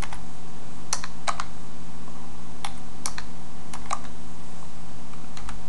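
Computer keyboard typing: scattered keystrokes, several in quick pairs, with short pauses between them.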